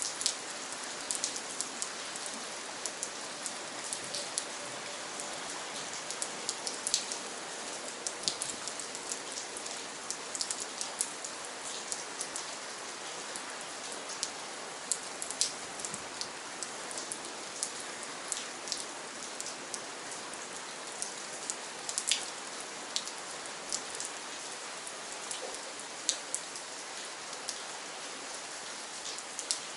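Steady rain: an even hiss of rainfall with frequent sharp, separate drops hitting close by, one louder drop about two thirds of the way through.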